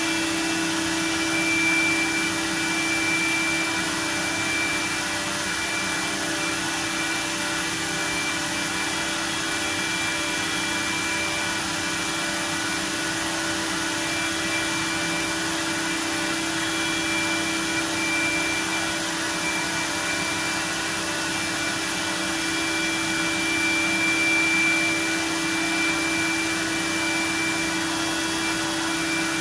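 C.R. Onsrud 122C16C CNC router running: a steady machine hum with a hiss of air as the spindle head travels over a wooden board, and a higher whine that rises and fades every few seconds.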